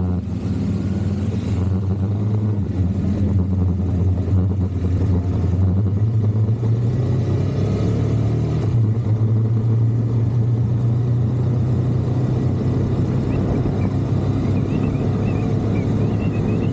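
KTM adventure motorcycle engine running as the bike pulls away and gathers speed, a steady low drone whose note shifts a couple of times as it gets under way.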